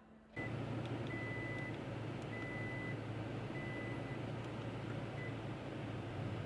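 Toyota Tacoma cab interior with the truck running: a steady low hum and hiss, with a high warning chime beeping five times about a second apart; the first and last beeps are short.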